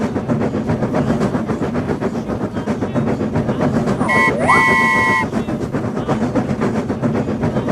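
Train running with a rapid, steady clickety-clack of wheels over rail joints. About four seconds in, a horn sounds a short toot and then a longer blast of about a second.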